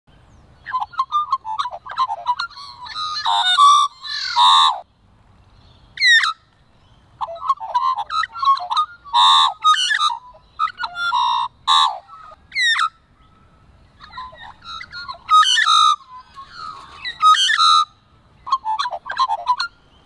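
Australian magpie singing: a run of warbling and carolling phrases with quick whistled pitch glides, broken by short pauses about 5, 13 and 18 seconds in.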